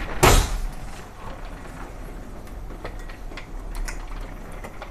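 Tile display rack being handled: a short, loud scraping rush about a quarter-second in, then faint scattered clicks and knocks of the metal-framed display panels.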